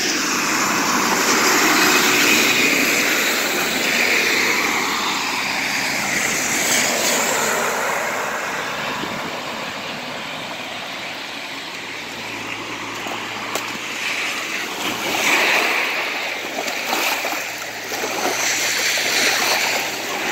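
A big rig driving through deep floodwater, its spray loudest over the first few seconds and then fading. Then floodwater rushing down a clogged storm-drain grate, with uneven splashing as boots push leaves over the grate.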